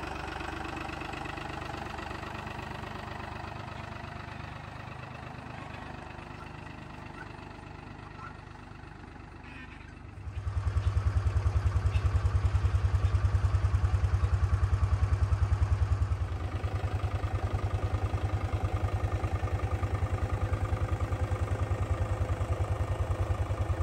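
Farm tractor engine running while towing a trailer, with a rapid firing beat. It becomes much louder about ten seconds in as it draws close, then eases a little a few seconds later.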